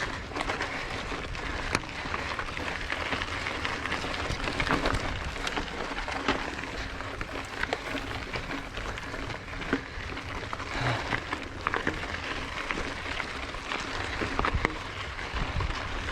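Mountain bike being ridden over a rough dirt trail: a steady rushing noise from the tyres, with frequent small clicks and rattles.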